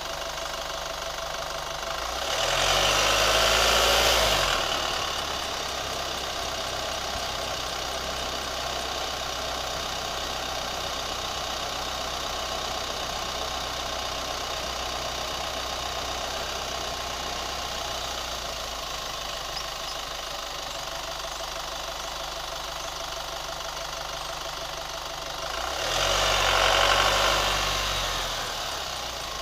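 Chevy Colorado engine idling with a ticking noise. The engine is revved briefly twice, once about two seconds in and again near the end, each rev rising and falling in pitch.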